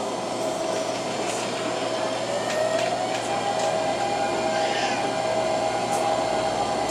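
Interior of an MTR Tung Chung Line CAF-built train pulling away from a station: steady running noise under a traction-motor whine that rises in pitch about two and a half seconds in as the train picks up speed.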